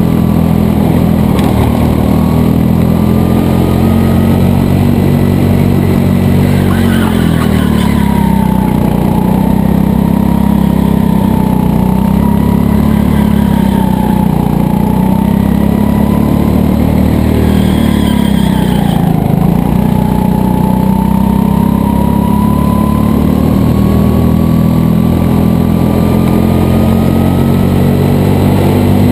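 Go-kart engine running under load on a lap, heard from the driver's seat, its pitch dipping twice as the kart slows and then climbing again, with a high whine that rises and falls with it.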